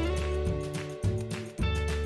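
Background instrumental music with a steady bass line and new notes coming in about every half second.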